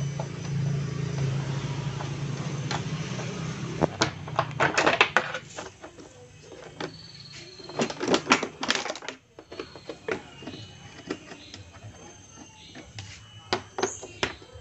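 Plastic body panels of a Yamaha Vega ZR motorbike being pulled and pried off: clusters of sharp clicks and snaps as the panel clips let go, loudest about eight seconds in, then scattered lighter clicks and scrapes from a screwdriver. A low steady hum runs under the first four seconds.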